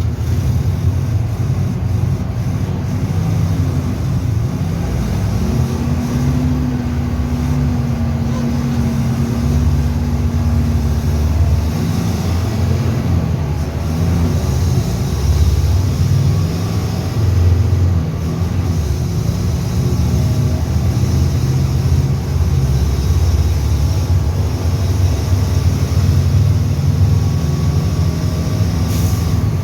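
Mercedes-Benz OF-1722M bus's diesel engine running at high revs, its deep drone rising and easing.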